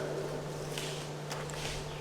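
Faint steady low hum with a few soft scuffs, no voice sounding.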